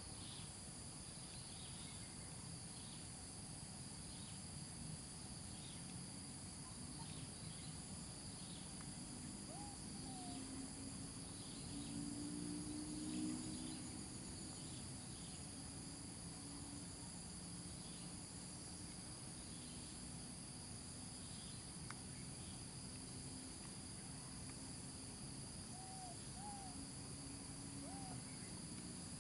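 Insects trilling steadily in a high, even chorus, with repeated short chirps. A few faint short arching calls come about a third of the way in and again near the end, and a low hum briefly swells near the middle.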